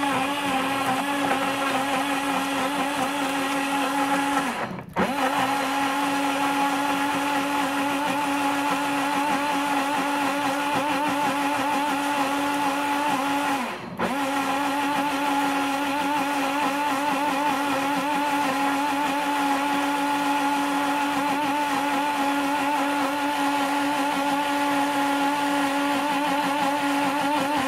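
Blendy Go 3 portable blender running steadily, blending fruit with milk, a loud even motor whine. The motor briefly drops out and picks up again twice, about 5 and 14 seconds in.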